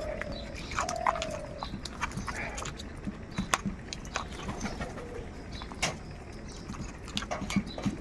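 A flock of crows cawing: several harsh, falling calls in the first second and a half and a few more later, over many sharp clicks and taps.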